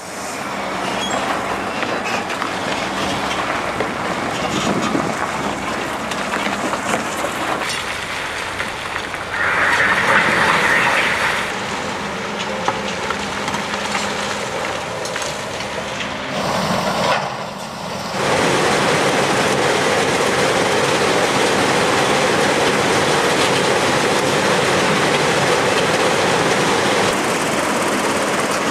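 Heavy diesel machinery working concrete rubble: an excavator digging through broken concrete, then a mobile crusher and conveyor running with a steady rumble and rattle of stone, louder and more even for the last part.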